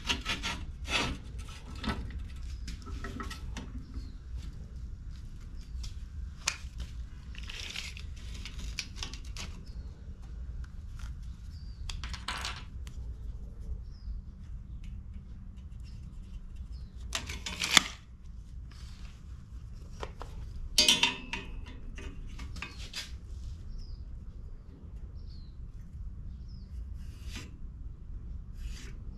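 Scattered light metal clinks and knocks from handling a steel bar in a bench vise and working a tape measure along it, with two louder clattering moments about two-thirds of the way in. A steady low rumble sits underneath.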